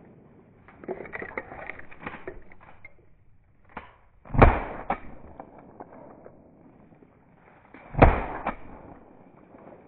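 Two shotgun shots about three and a half seconds apart, each a sharp blast with a short fading echo and a fainter crack about half a second after it. Before them come scattered rustles and clicks.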